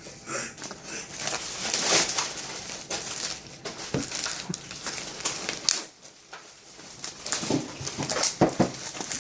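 Plastic shrink wrap being torn and crinkled off a phone box, with irregular crackles and a few handling knocks near the end.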